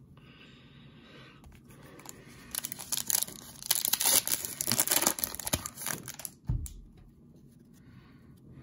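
Foil trading-card pack wrapper being torn open and crinkled by hand, crackling for about three seconds in the middle, loudest as the wrapper comes apart.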